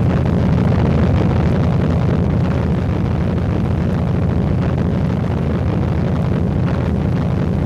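Aircraft engines droning steadily, a dense, even low rumble, on the soundtrack of airship flight footage.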